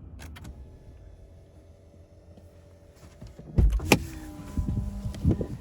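Pickup truck door being opened: a loud latch clunk about three and a half seconds in, then a short electric motor whine and a few knocks.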